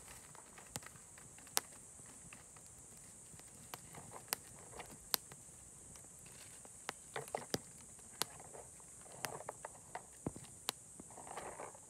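Open wood fire with cashew nuts roasting in their shells on the coals, crackling with scattered sharp pops at irregular intervals.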